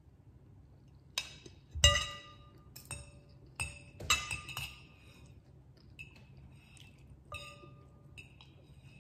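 Metal knife and fork clinking against a ceramic bowl of noodles: a string of sharp clinks, each ringing briefly, the loudest about two seconds in.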